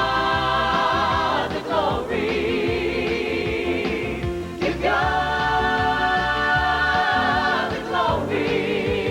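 Gospel vocal group singing long held harmony notes with vibrato over instrumental backing. The chord changes about every three seconds.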